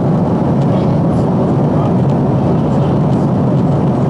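Steady cabin noise inside a Boeing 767-400 airliner in cruise: an even, loud low rumble of engine and airflow noise that does not change.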